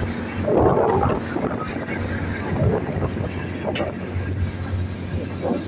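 Fishing vessel's engine running with a steady low hum, under the rush of wind on the microphone.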